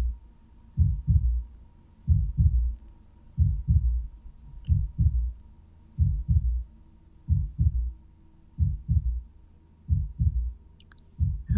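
Slow heartbeat: low paired lub-dub thumps repeating about every 1.3 seconds, over a faint steady hum.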